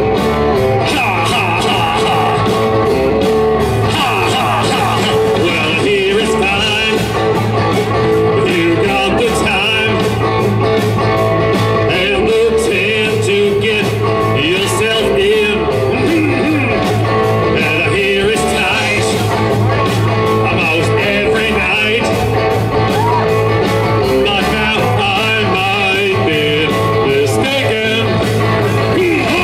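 Live rock band playing a bluesy rock number: electric guitar lead lines with bent notes over bass and a drum kit keeping a steady beat on the cymbals.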